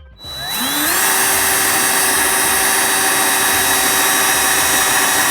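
Power drill spinning up with a rising whine, then running steadily as a titanium-coated step drill bit cuts a hole into a PVC plastic electrical box.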